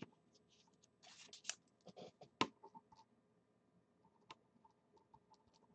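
Faint desk-handling noises: scattered small clicks and light rustling, with one sharper click about two and a half seconds in.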